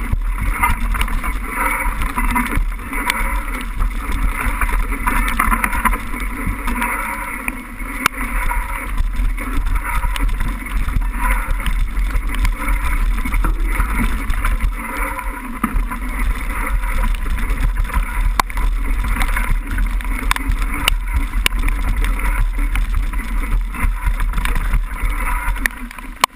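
Mountain bike riding down a wet, muddy trail in heavy rain: a steady rumble of wind and rain on the camera microphone, with tyres rolling through water and mud and scattered sharp clicks and knocks from the bike over rough ground.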